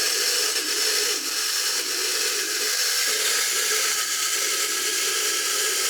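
Wind-up clockwork mechanism of a 1950s Linemar easel-back tin robot running steadily as it walks, a continuous dry whirr of gears. It sounds like it could use a little oil inside.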